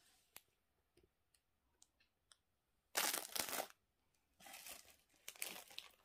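Clear plastic packaging crinkling as it is handled: a few faint ticks, then a loud rustling burst about three seconds in, and more crinkling from about four and a half seconds.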